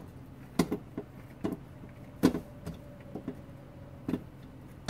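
Sharp clicks and knocks of a plexiglass sheet being handled and screwed onto the plastic frame of a PC fan. There are about seven at irregular spacing, the loudest a little past the middle.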